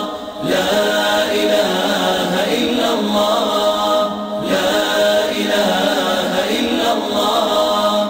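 Voices chanting a cappella, like a nasheed, in two long sung phrases over a steady held tone. The singing breaks off briefly just after the start and again about halfway through.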